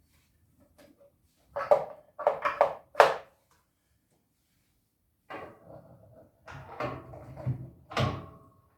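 Sharp metal knocks and clanks as a generator's back wheel is fitted onto its axle, three loud hits close together, then a run of lighter clicks and rattles ending in a brief metallic ring.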